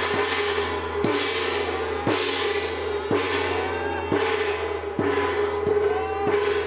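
Chinese dragon-dance percussion: a hanging gong, cymbals and a drum struck together about once a second, with the gong's ring holding steady between strikes.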